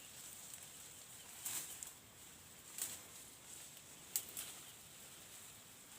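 A few short, faint crackles and rustles, like steps or brushing through dry leaves and undergrowth, over a faint steady high hiss of the countryside.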